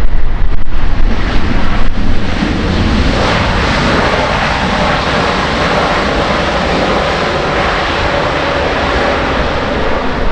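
Boeing 787-9's GE GEnx-1B turbofans in reverse thrust on the landing rollout: a loud steady roar with a faint whine that swells to full strength about three seconds in. Wind buffets the microphone in the first couple of seconds.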